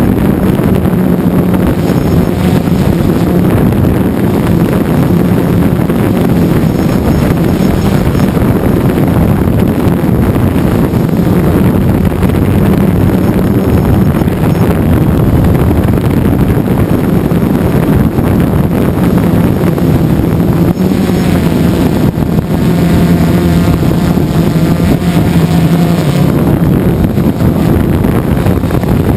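DJI Phantom 2 quadcopter's electric motors and propellers buzzing steadily, heard from its own onboard GoPro, with wind rushing over the microphone as the drone descends. Around twenty seconds in, a higher wavering whine joins the steady hum for a few seconds.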